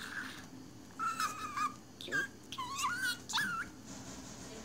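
Budgerigar chattering: a few short, high, wavering speech-like phrases, starting about a second in.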